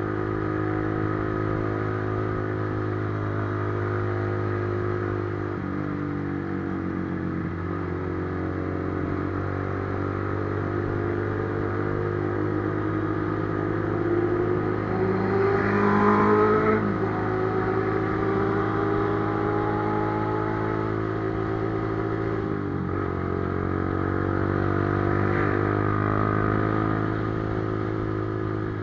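Honda CB650F inline-four motorcycle engine and exhaust running under way. The engine note climbs as it accelerates and is loudest about halfway through, with brief drops like gear changes about six, eight and twenty-three seconds in.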